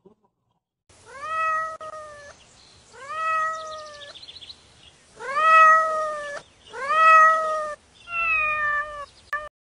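A cat meowing repeatedly: five long, drawn-out meows, each rising at the start and then held, with the third and fourth the loudest, and a short final meow near the end.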